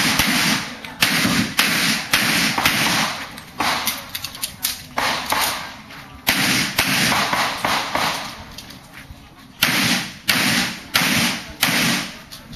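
Pistol shots fired in quick strings, mostly about half a second apart, with a pause of about two seconds about two-thirds of the way through before the last few shots.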